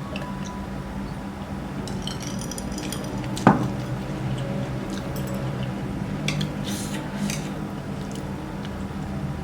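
Mukbang eating sounds: a utensil clinking against a bowl or plate, with wet, squishy food noises and scattered small clicks. One sharp, louder clink comes about three and a half seconds in.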